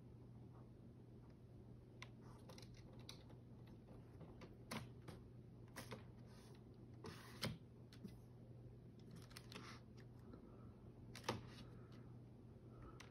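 A kitten's paws knocking against a computer keyboard and monitor: scattered light clicks and taps, with three louder ones spread through, over a faint steady hum.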